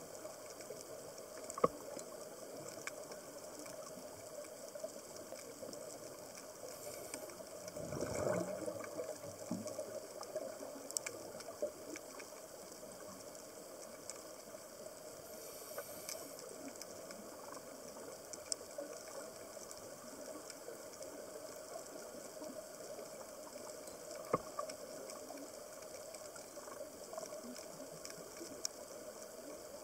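Underwater reef ambience picked up by a camera in its dive housing: a steady hiss with scattered sharp clicks and crackles, and a brief rush of bubbles about eight seconds in.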